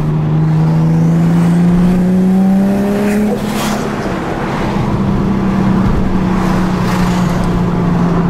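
Turbocharged Nissan 350Z's V6 engine, heard from inside the cabin, pulling under a little boost with its note rising for about three seconds. The note then drops back, and the car cruises on at a steady engine pitch.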